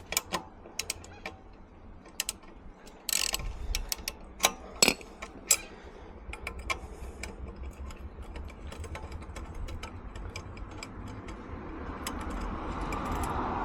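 Hand tools clicking and knocking against the metal end cap of a motorcycle exhaust as it is undone, in scattered sharp clicks, with a denser rustle building near the end.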